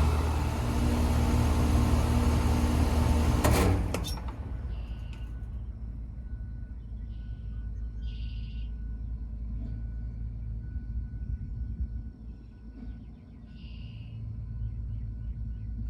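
Carrier Sentry 3.5-ton air conditioner's outdoor unit, Copeland scroll compressor and condenser fan, running with a steady hum, then shutting off with a click about three and a half seconds in, leaving only a low rumble.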